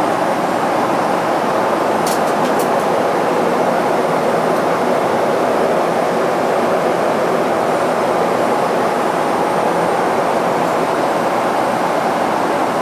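Steady rushing cabin noise inside a Boeing 777-200ER cruising at about 31,000 ft, the airflow and engine noise of the airliner in flight. A few faint clicks about two seconds in.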